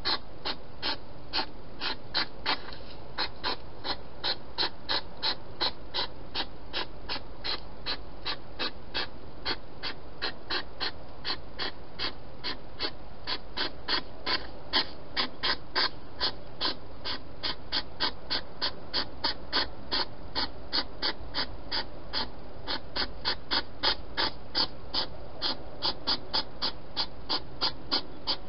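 Wild hedgehog chewing food, crunching in an even rhythm of about three bites a second.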